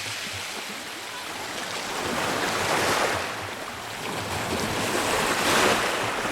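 Rough Black Sea surf: waves breaking and washing, with two louder surges about three and five and a half seconds in.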